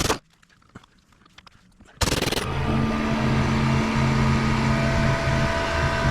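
A sharp knock, then small clicks. About two seconds in, a loud, steady mechanical hum with a fixed pitch starts abruptly.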